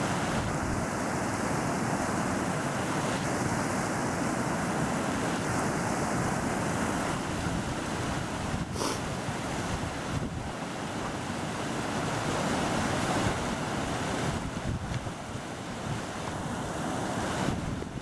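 Whitewater of the Tamuja river rushing over rocks and through small cascades: a steady, full hiss of running water, with one short click about nine seconds in.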